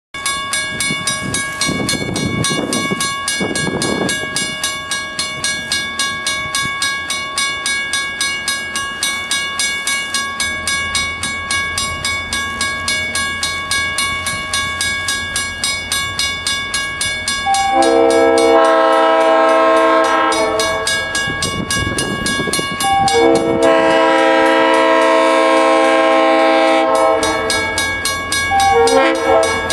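A railroad crossing signal bell rings steadily with rapid, even strikes, while an approaching diesel locomotive's low engine rumble grows. The locomotive's multi-chime air horn sounds a long blast about 18 seconds in, a longer one about 23 seconds in, and a short one near the end: the long-long-short opening of the grade-crossing horn signal.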